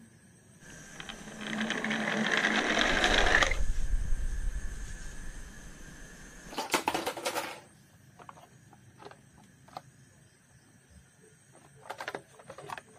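A toy car's geared mechanism whirring fast with a fine rattle for about three seconds, then dying away. It is followed by a few light plastic clicks and knocks as the toy cars are handled.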